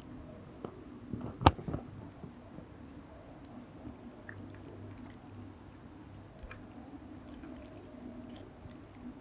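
Soup noodles being eaten: soft wet chewing and mouth sounds, with one sharp click about a second and a half in.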